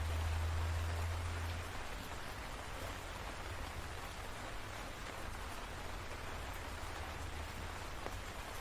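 Steady rain falling in a continuous hiss. A low rumble underneath is strongest at the start and eases off about two seconds in.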